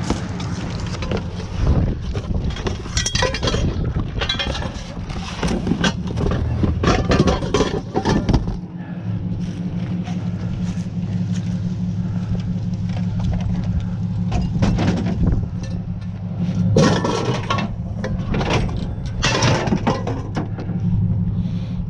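Pickup truck engine idling steadily, with repeated clanks, knocks and rattles of scrap and curbside junk being handled and loaded into the truck bed. The clatter comes in several bunches, the loudest about seven seconds in and again near the end.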